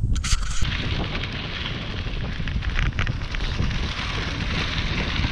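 Mountain bike ridden at speed: steady crackling tyre noise over rough ground with wind rumbling on the action-camera microphone, and a few sharp clicks near the start.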